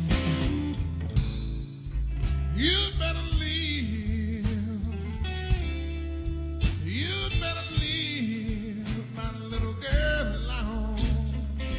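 Blues band playing: electric guitar, bass and drums, with long sung phrases that swoop up and bend down, three times a few seconds apart.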